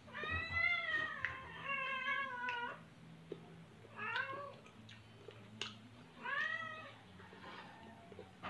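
Domestic cat meowing repeatedly: four separate meows a second or two apart, mostly long and arching in pitch, with one short meow in the middle.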